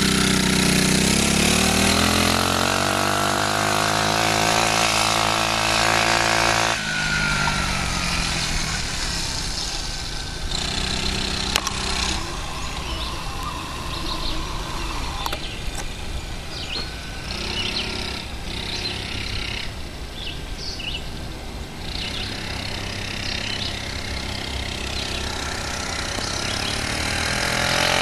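Mini-quad's small engine running under throttle, its pitch climbing steadily for the first several seconds. About seven seconds in it drops suddenly to a quieter, rougher running sound with scattered light clicks, then picks up and rises again near the end.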